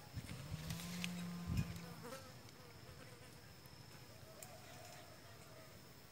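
A flying insect buzzing close by for about a second and a half, with a couple of dull knocks near the start, then fading to a faint steady high-pitched whine with scattered faint chirps.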